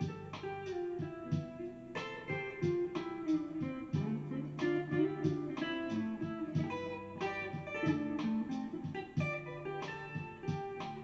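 Electric guitar played solo, picking arpeggios: single notes ring one after another over chords, with occasional fuller chord strikes.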